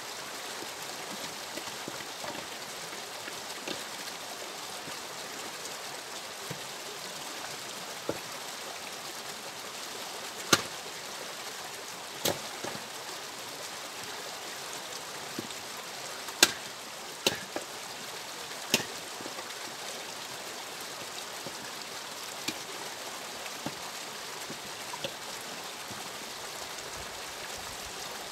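Firewood being split with an axe at a distance: several sharp cracks of the blade striking and splitting logs, with lighter knocks of split pieces, spaced irregularly and bunched between about ten and nineteen seconds in, over a steady hiss.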